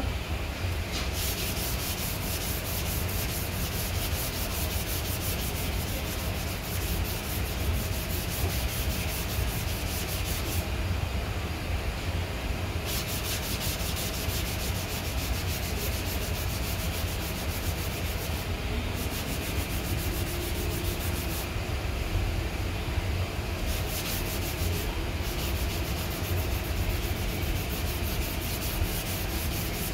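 Body filler on a car's steel quarter panel being hand-sanded with sandpaper on a rubber sanding block: a steady scratchy rasp of long back-and-forth strokes, with a few short pauses.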